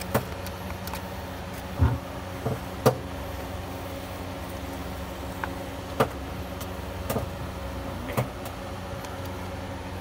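Honeycomb being pulled and broken off by hand from a wooden and corrugated-metal cavity: a handful of sharp clicks and soft thuds, the sharpest about 3 and 6 seconds in, over a steady low hum.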